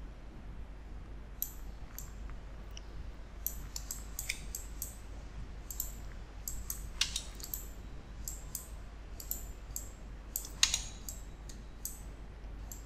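Computer mouse and keyboard clicks, sharp and irregular, with two louder clicks about 7 and 10.5 seconds in, over a steady low hum.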